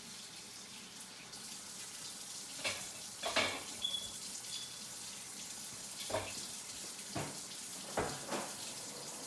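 Kitchen tap running steadily into the sink while raw chicken wings are washed, with a handful of short knocks and clatters from handling in the sink.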